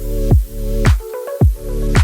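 Electronic background music with a steady kick-drum beat, about two beats a second, under sustained synth notes.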